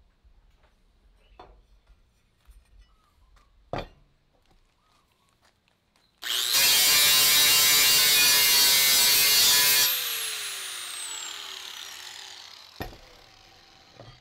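Angle grinder switched on about six seconds in and held against the edge of an aluminium corner piece for about three and a half seconds, trimming it to fit, then switched off and spinning down with a falling whine. Before it, light knocks from handling the metal, one sharper knock about four seconds in.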